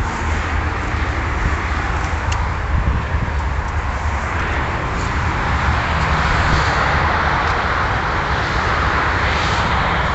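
Ferrari 599 GTB Fiorano's V12 idling steadily with a low rumble, under a broad rushing hiss that grows louder in the second half.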